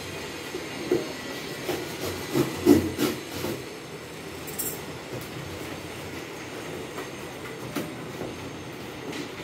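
Large cardboard sheets being slid, scraped and folded on a tiled floor while a glass item is packed. A cluster of knocks and scrapes comes in the first few seconds, over a steady rumbling hiss.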